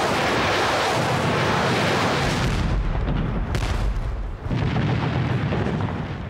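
Battle sound of rocket and artillery fire: a dense rushing blast noise, then a deep rumble of explosions with a sharp crack about three and a half seconds in and another loud blast about a second later.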